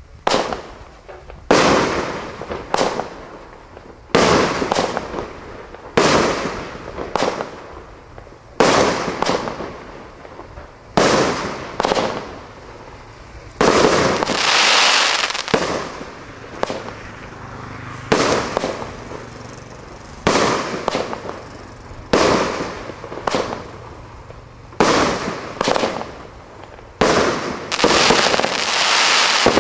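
Triple Attack 21-shot firework barrage cake firing its fanned shots. Each shot is a sharp bang followed by a fading hiss, and they come about every one to two seconds, often in quick pairs. Two longer, sustained spells of hissing come around the middle and near the end.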